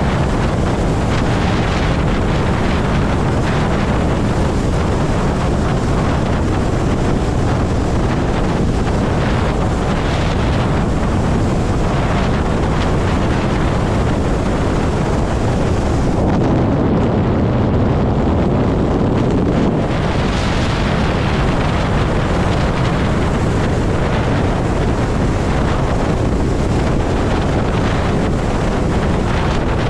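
Heavy, steady wind rushing over the microphone of a rider on a Zero electric motorcycle at highway speed. The hiss turns briefly more muffled a little past halfway, then returns.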